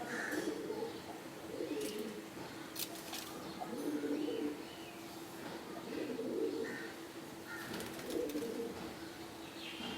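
Pigeons cooing, with about five low coos spread a couple of seconds apart. A few sharp clicks come about three seconds in.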